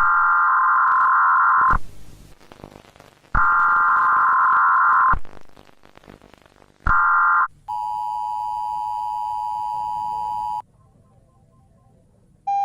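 Emergency Alert System tones: three bursts of warbling SAME header data, the third cut short, then the steady two-tone attention signal for about three seconds, the signal that an emergency alert is beginning. It stops abruptly, leaving a faint hiss.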